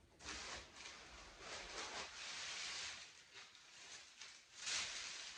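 Soft rustling handling noise in several swells, each a second or less, the loudest near the end.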